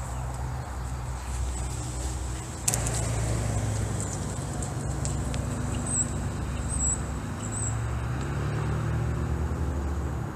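Steady low rumble of a motor vehicle running or road traffic, with a sharp click about two and a half seconds in and a few faint high chirps a little past the middle.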